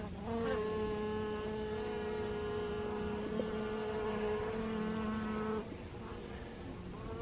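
Honeybees buzzing in flight close to the microphone at the hive entrance, a steady hum that eases off a little over five seconds in. The colony has become active in a winter warm spell, with workers busy clearing dead bees out of the hive.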